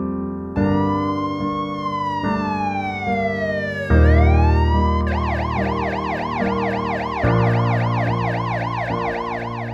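Ambulance siren over soft piano music: a slow wail that rises, falls and rises again, then switches about five seconds in to a fast yelp of about three cycles a second.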